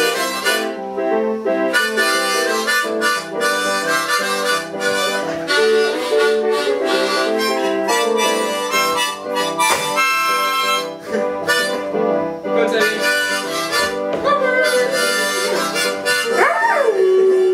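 A dog howling along to blues harmonica playing, its howls tracking the harmonica's notes. Near the end one long howl slides down in pitch.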